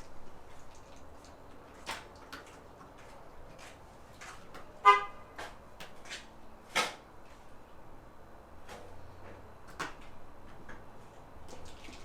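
Scattered small clicks and knocks of plastic clips and wiring connectors being pried and pulled inside a car door. One short, high-pitched toot-like beep sounds about five seconds in.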